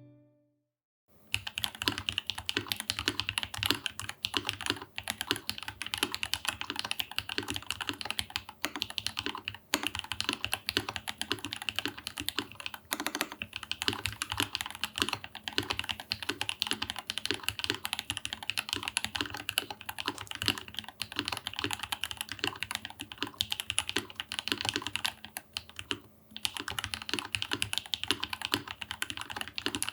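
Fast typing on a custom RAMA U80-A SEQ2 tenkeyless mechanical keyboard with lubed and filmed Alpaca linear switches, a brass plate and GMK keycaps: a dense run of keystrokes starting about a second in, with a few short pauses.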